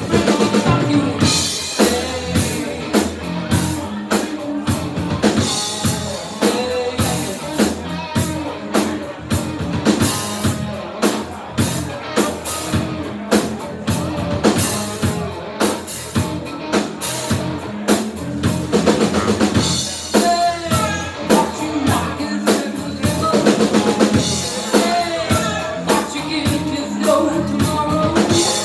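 Live band playing: a drum kit keeps a steady beat under electric guitar and bass.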